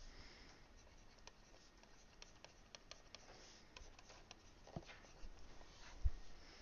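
Faint ticks and scratches of a stylus writing on a tablet or touch screen, with a couple of soft low thumps near the end, the stronger about six seconds in.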